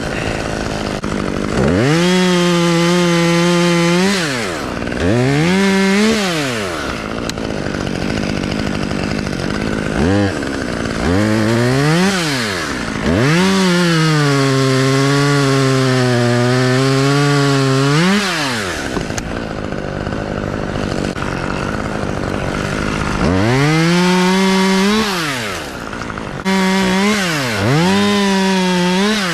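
Chainsaw revved again and again from idle into cuts through oak wood, dropping back to idle between them. The longest cut, in the middle, lasts about five seconds, and the engine pitch sags under the load.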